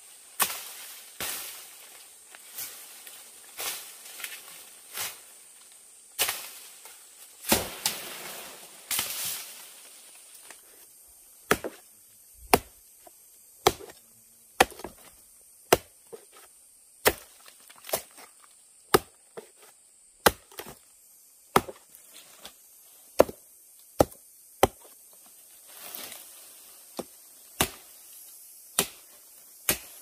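Machete chopping at the base of a plant among dry brush: dozens of sharp blows, about one a second, coming a little faster in the second half. A rustle of dry leaves and fronds sounds about eight seconds in.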